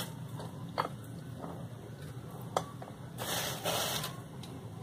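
Flour being tipped into a metal mesh sieve: a soft hiss about three seconds in, with a couple of light clicks, over a low steady hum.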